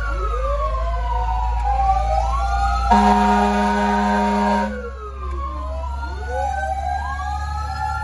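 Fire truck siren wailing, its overlapping tones rising and falling, over the low rumble of the truck's engine. About three seconds in, a horn blasts for nearly two seconds and is the loudest sound.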